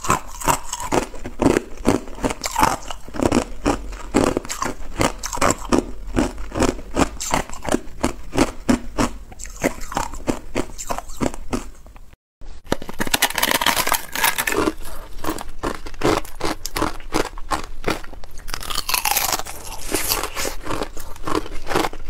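Ice being chewed close to the microphone: rapid, continuous crunching of ice cubes. After a brief cut-out about halfway, sharper and crisper crackling crunches of a thin ice sheet being bitten and chewed.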